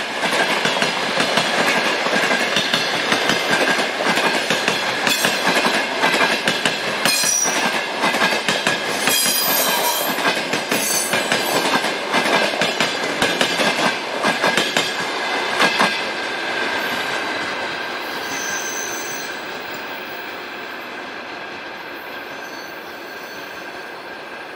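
Passenger train coaches rolling past, wheels clattering over rail joints with a steady high squeal from the running gear and a few brief sharper whistles. About two-thirds of the way through the clatter ends and the rolling sound fades as the tail of the train moves away.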